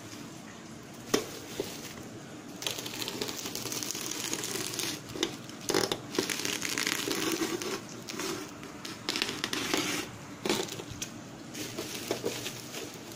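Utility knife slitting open a bubble-wrap parcel: the plastic wrap and tape crinkle and crackle in uneven scraping bursts as they are cut and pulled apart, with a few sharp clicks.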